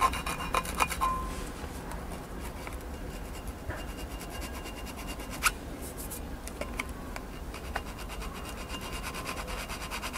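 Rapid, even scratchy rubbing strokes by hand, with a few sharp clicks, one of them about halfway through.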